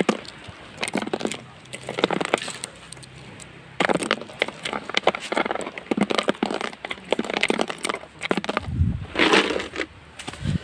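Footsteps crunching over sandy ground strewn with dry twigs and leaves, an irregular run of short crunches, a couple a second.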